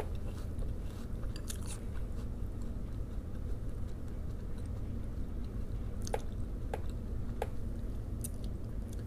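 A person chewing a mouthful of crunchy Strawberry Toast Crunch cereal, with three sharp clicks a little past the middle, over a steady low hum.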